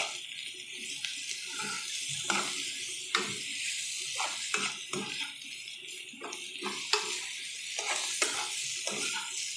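Sliced chayote, onion and tomato sizzling in oil in a nonstick frying pan while a metal spoon stirs them. Scattered clicks and scrapes come from the spoon against the pan.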